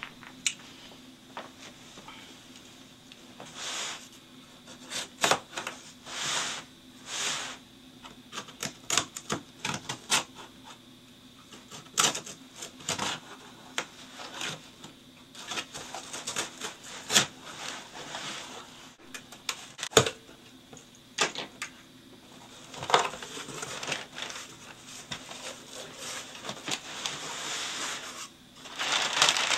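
A cardboard shipping box being handled and opened by hand, with scattered clicks, taps and scrapes on the cardboard. In the last several seconds come denser rustling and crinkling of brown kraft packing paper, loudest at the very end.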